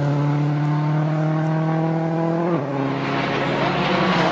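Ford Focus WRC rally car's turbocharged four-cylinder engine held at steady high revs through a corner. Its note drops abruptly about two and a half seconds in, and a rising hiss follows as the car goes by.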